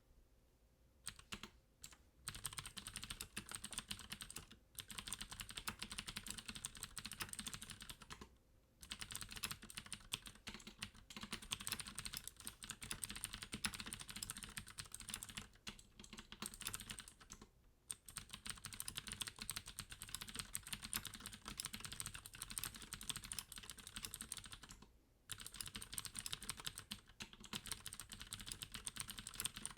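Fast, continuous typing on a Deck Hassium Pro mechanical keyboard with clicky Cherry MX Blue switches and its dedicated sound-dampening foam fitted. It starts about a second in and stops briefly four times.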